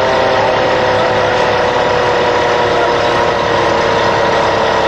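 Fire truck diesel engine running steadily and loudly, its pitch easing slowly downward.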